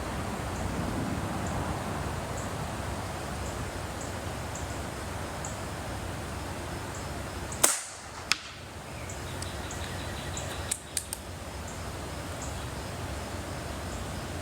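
An airgun firing a single shot about halfway through: one sharp crack, then a second, smaller crack under a second later. A quick run of three clicks follows a few seconds after. Steady low outdoor noise and faint, evenly spaced high ticking run underneath.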